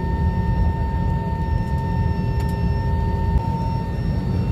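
Jet airliner cabin noise: a steady low rumble with a steady whine of several held tones from the engines and air system. One of the lower tones drops out about three seconds in.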